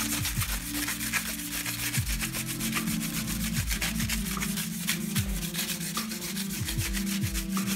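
Crumpled aluminium foil, wet with Diet Coke, rubbed back and forth in quick, even strokes on the chrome fork stanchion of a 1981 Honda XL125S, scouring surface rust off the chrome.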